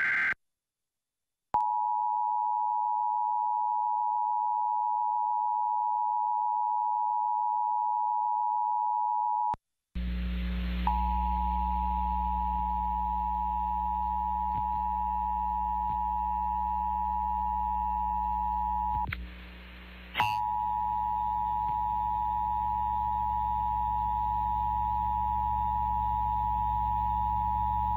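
Emergency Alert System attention signal: a steady two-note tone held for about eight seconds, stopping, then sounding again twice more over a low steady hum with a short break between. At the very start the last of a screechy digital header burst cuts off.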